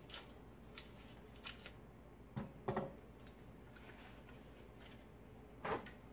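Paper butter wrapper crinkling as it is peeled back, and a half stick of butter dropped into an empty stainless steel frying pan, landing with a few short thuds about two and a half seconds in. Another short knock comes near the end.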